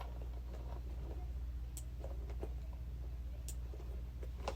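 A few faint metallic clicks and some handling noise as a metal bag chain's clasps are hooked onto a ring, over a steady low hum.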